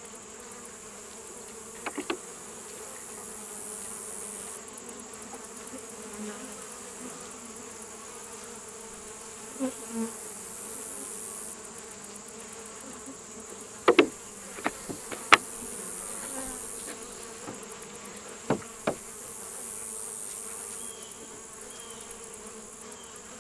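Honeybee colony buzzing steadily around an open hive, the bees stirred up by the inspection. A few sharp knocks from handling the hive stand out, the loudest a cluster a little past the middle.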